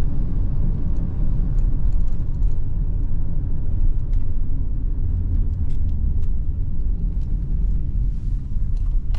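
Steady low rumble of a moving motor vehicle: engine and road noise.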